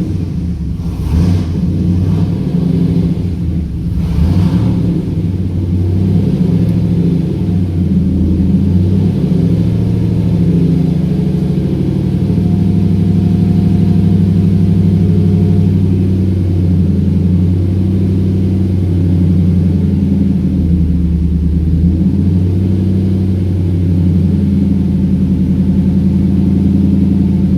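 Whipple-supercharged 5.4-litre V8 of a 2003 Ford SVT Lightning running cold, a low idle that wavers in speed. Two brief rises come in the first few seconds.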